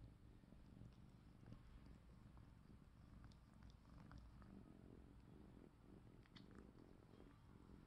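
Cat purring steadily, a low pulsing rumble, with a few faint clicks of licking as one cat grooms the other.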